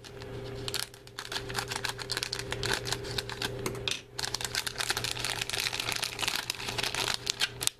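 Scissors cutting into a crinkly plastic candy-kit wrapper: a dense run of small crackling clicks, pausing briefly about four seconds in.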